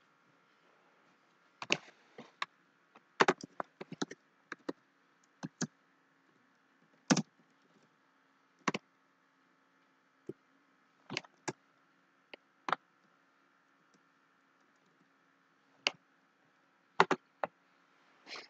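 Computer keyboard being typed on: sharp key clicks in irregular clusters and single strokes, over a faint steady hum.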